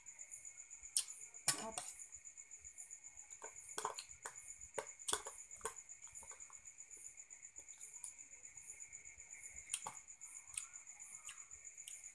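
Small sharp clicks and taps of a metal spoon against a plastic cup, a cluster in the first six seconds and one more near ten seconds, over a steady pulsing chirr of crickets.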